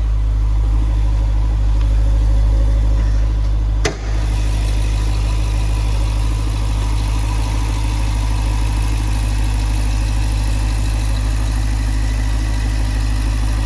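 Jeep Grand Cherokee SRT's 6.4-litre Hemi V8 idling steadily, breathing through a freshly installed aFe Magnum Force Stage-2 cold air intake. The sound drops out briefly about four seconds in.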